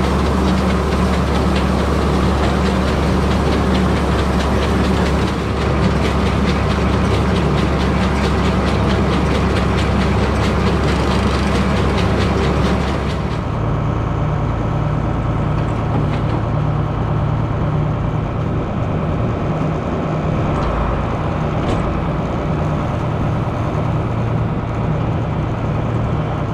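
Tractor engine running steadily while pulling a baler through corn stalks, with a fast mechanical clatter over the engine hum. About halfway through, the sound shifts to a lower, slightly quieter hum with less clatter.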